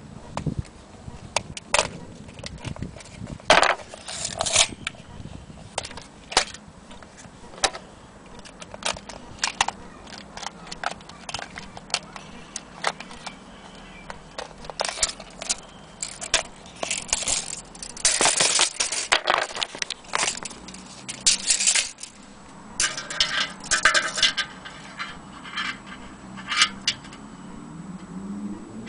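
Irregular clicks, taps and rustles of handling noise, with a denser run of rustling and clicking in the last few seconds as a tape measure is brought against the horn.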